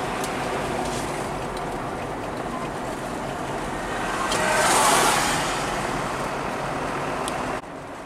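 Steady engine hum and tyre noise of a vehicle driving along a town road. An oncoming truck passes about five seconds in, swelling to the loudest point and fading. The sound drops abruptly shortly before the end.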